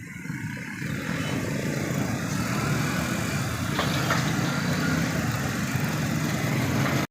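Steady vehicle noise, a dense rumble and rush that builds over the first second, holds level and then cuts off suddenly.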